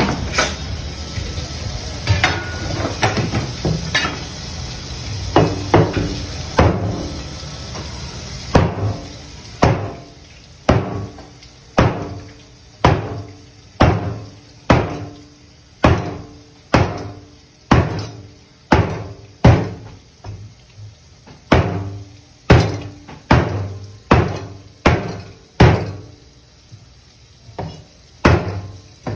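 A large kitchen knife chopping a moray eel into chunks on a plastic cutting board. Each stroke is a sharp chop with a short ringing thud, coming about once a second from roughly a third of the way in. Before that, a steady rush of water from a hose runs under scattered knocks.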